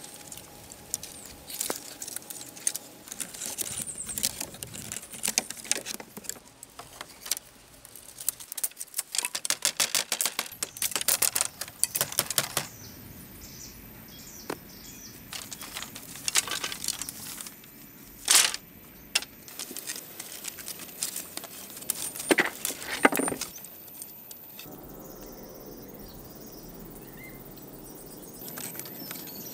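Wooden sticks and branches clattering, knocking and rustling as they are handled and lashed onto a stick frame. The clatter is dense at first, then thins to a few separate sharp knocks.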